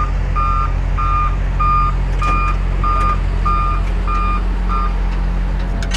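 John Deere 544K wheel loader's backup alarm beeping steadily, a little under two beeps a second, signalling that the loader is in reverse, over its running diesel engine. The beeping stops about five seconds in while the engine keeps running.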